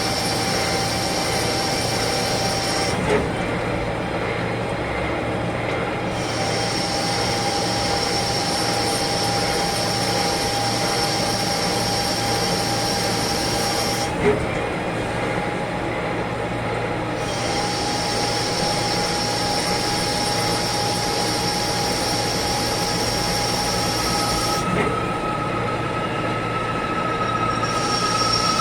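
CNC lathe running through its machining cycle: a steady high whine over mechanical noise. A sharp clack comes three times, about eleven seconds apart, and each time the high whine drops away for a few seconds.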